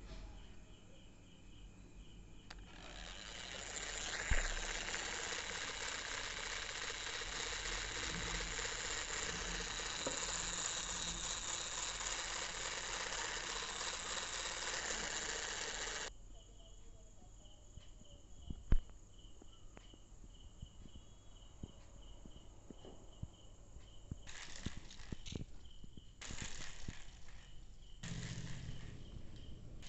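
Small DC motor spinning a plastic spur gear on a cardboard car's rear axle, with the wheels turning freely in the hand: it spins up about two and a half seconds in, whirs steadily for about thirteen seconds with a sharp click shortly after starting, then cuts off suddenly as it is switched off. Near the end come a few shorter whirring runs as the car is driven on the floor.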